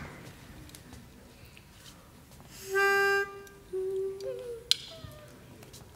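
Pitch pipe blown once, one reedy note held for about half a second, giving the barbershop quartet its starting pitch. Soft humming follows as the singers find their notes, rising in pitch, with a brief click near the end.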